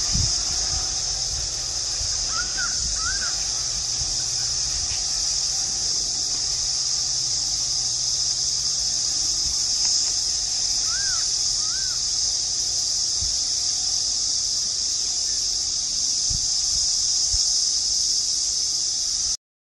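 A steady, high-pitched insect drone over a faint low rumble from the receding passenger train. A bird calls twice, each time with a pair of short rising-and-falling notes, about two seconds in and again about eleven seconds in. All sound cuts off just before the end.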